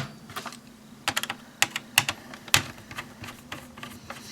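Irregular light plastic clicks and taps from a Dell Latitude D520 laptop's casing and keys being handled during disassembly, a quick run of them about a second in.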